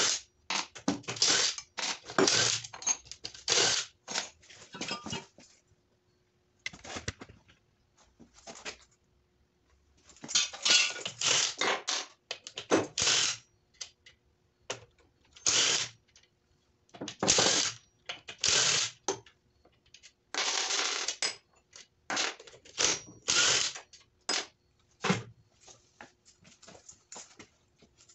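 Hand ratchet clicking in short, irregular runs, with metal clinks, as bolts are backed out of the lower end of a Honda D16Y7 engine block to free the crankshaft.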